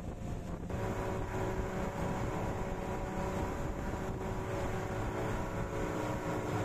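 Boat engine running steadily under way, over the rush of water and wind past the moving boat; the engine's hum comes up stronger about a second in.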